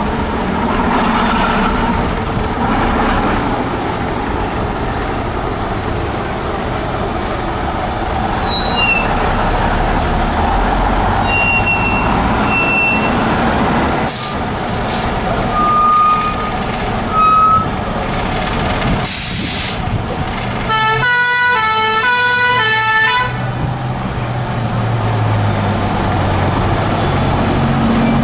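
Heavy bus engines running as vintage double-deckers drive past. Near the end, a two-tone emergency horn sounds for about two seconds, stepping rapidly back and forth between two notes; a short hiss comes just before it.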